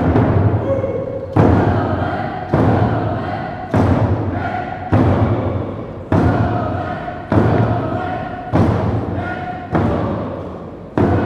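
Tlingit hand drum (a large frame drum) beaten in a slow, steady beat, about one stroke every 1.2 seconds, each stroke booming and fading away. Voices sing a held chant over it.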